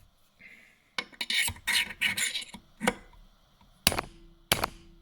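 Small metal parts and tools being handled: a stretch of scraping and rattling, then several sharp metallic clinks, one leaving a brief ringing tone.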